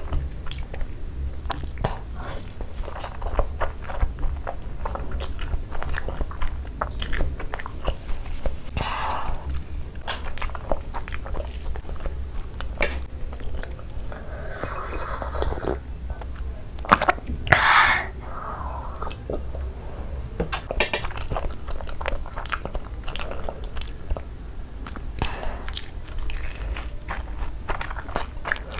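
Close-miked chewing of masala Maggi noodles, with many wet mouth clicks and smacks. About halfway through come a few sips and swallows of water, and near the end a bite into a Cheetos-coated fried cheese ball.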